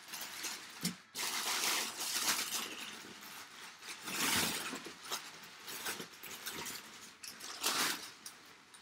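Crumpled packing paper rustling and crinkling as hands dig through it inside a cardboard box, in three main loud spells with a few short rustles between.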